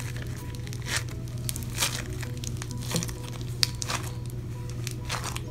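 Foam-ball slime squeezed and stretched by hand, giving irregular crackling and crunching pops as the foam beads are pressed together, over a steady low hum.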